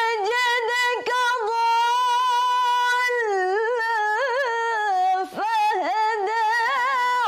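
A young woman's voice reciting the Qur'an in melodic tilawah style, unaccompanied: long held notes with ornamented turns, broken by short breaths about a second in and again around five seconds in.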